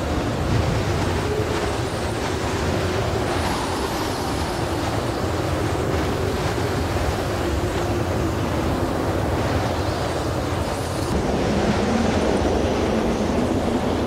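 Steady rushing noise, heaviest in the low end, with a faint wavering hum. The high end drops away about eleven seconds in.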